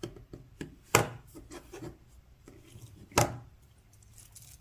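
Hollow-link stainless steel watch bracelet clinking and rubbing as the watch is handled, with two sharp metallic clicks, about a second in and just after three seconds.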